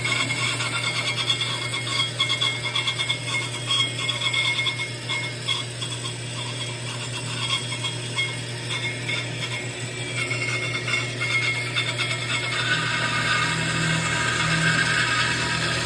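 Metalworking on a steel tube: a machine running steadily with a constant hum and a fast, dense crackling rattle, with a higher band of noise coming in about two-thirds of the way through.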